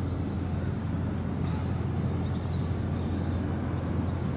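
Electric train running on the line behind, a steady low rumble, with a few faint bird chirps above it.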